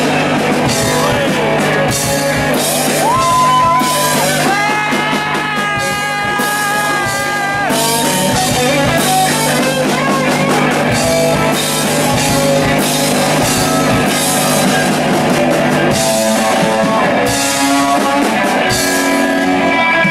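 Live rock band playing post-punk with electric guitars, bass and drum kit. Long held notes stand out from about three to eight seconds in over steady drumming.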